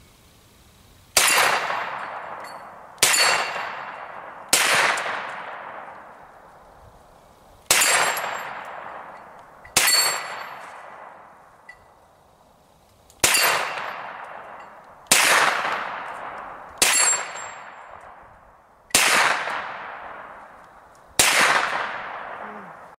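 Hi-Point 9mm carbine firing ten shots at an uneven pace, one every one to three seconds, each crack trailing off in a long fading echo. The rounds are Blazer brass-cased 9mm, fired through a 10-round magazine.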